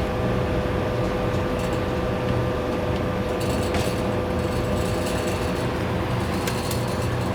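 Steady mechanical hum with a low rumble and a faint steady tone, with a few light clicks over it.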